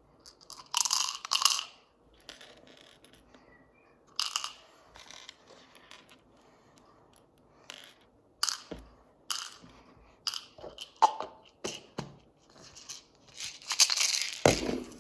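Irregular crinkling, crunching and clicking of plastic: leftover small toy pieces and packaging handled and put back into a plastic toy egg capsule.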